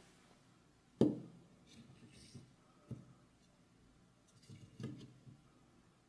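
A chunk of driftwood is set down on a polished wooden tabletop and shifted into place: a sharp wooden knock about a second in, a lighter knock near three seconds, then a few small knocks and rubs around five seconds as it is nudged against the other piece.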